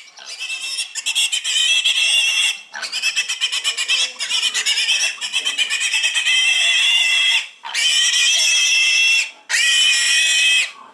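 Weaned piglet squealing loudly while held upside down by its hind legs: the piercing distress scream of a pig being handled. It comes in four long screams, each lasting one and a half to five seconds, with short breaths between them.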